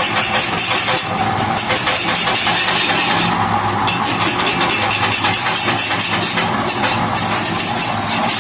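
Wood lathe running with a cutting tool biting into a spinning cẩm lai rosewood log, a steady, loud, rapid chatter of cuts.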